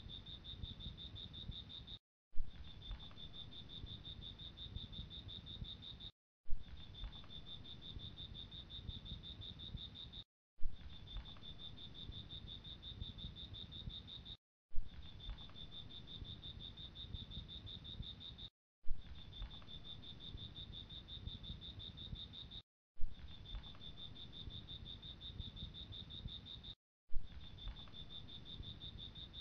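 A steady, high insect trill over a low rumble, cut into identical stretches about four seconds long. Each stretch starts with a sharp click and ends in a brief dropout to silence: one short recording played over and over in a loop.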